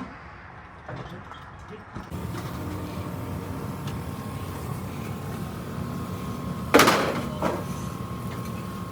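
A heavy truck running steadily, with a sudden loud hiss of air about seven seconds in and a smaller one just after, typical of an air-brake release.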